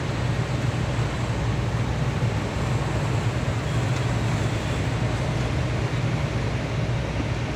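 Steady low drone of a heavy truck's engine, mixed with road and wind noise, heard from inside the cab while cruising at highway speed.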